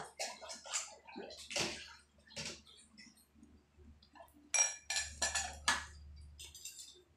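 Water sloshing as hands work in a stainless steel basin, then a quick run of sharp clinks with a short ring as plates are handled in a plastic dish rack in the second half.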